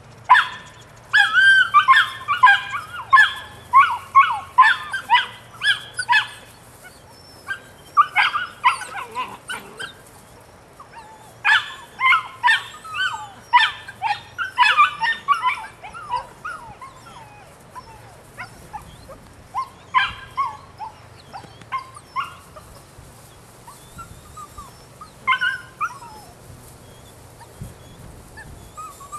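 Nine-week-old Belgian Malinois puppy giving rapid high-pitched yips and whines in excited bursts during rag play: a long run in the first six seconds, shorter runs after that, and single short bursts near the end.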